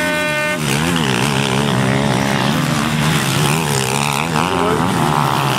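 An air horn's steady blast cuts off about half a second in, then a dirt bike engine revs up and down as it races past on the motocross track.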